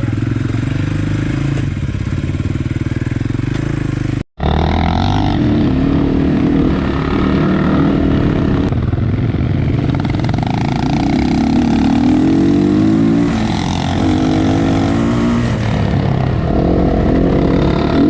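Dirt-bike engine running under throttle, its pitch climbing and falling again and again as it revs up and backs off. The sound cuts out for an instant about four seconds in.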